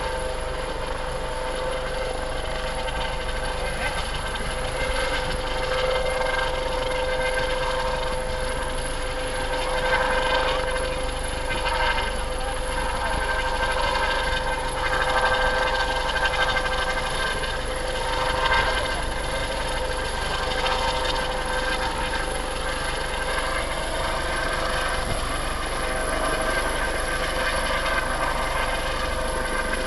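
Coast Guard Dolphin helicopter hovering low over the water, a steady turbine whine over the beat of its rotors.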